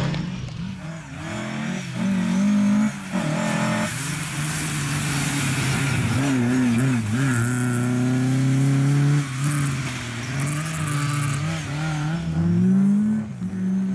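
Lada 2107 rally car's four-cylinder engine revving hard as it passes and accelerates away. The note rises and falls with throttle and gear changes, dropping sharply about three seconds in and again around nine seconds, then climbing near the end.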